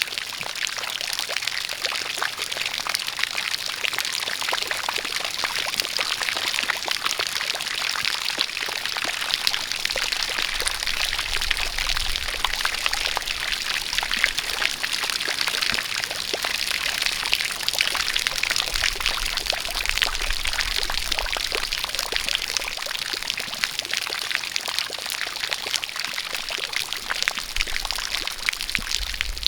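A jet of water pouring and splashing steadily, with rain falling: a dense, even patter of countless drops.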